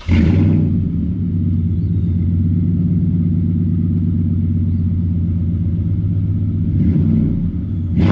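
Lifted Toyota Tundra's engine firing up with a loud flare and settling straight into a steady, deep idle through the exhaust, swelling slightly near the end.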